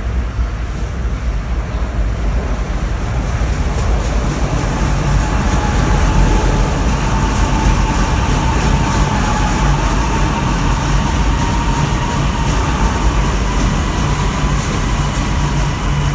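Shanghai Metro electric train running past on the elevated track: a steady rumble of wheels on rail. A motor whine comes in about five seconds in and holds.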